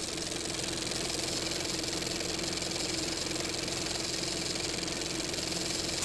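Film projector running: a steady motor hum with a fast, fine clatter from the film moving through the gate.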